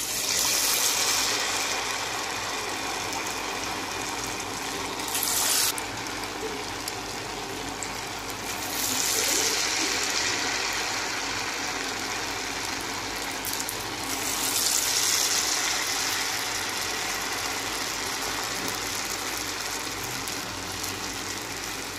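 Semolina bonda batter deep-frying in hot oil: a steady loud sizzle that starts as the batter goes into the oil. It swells louder several times, at about five, nine and fifteen seconds in.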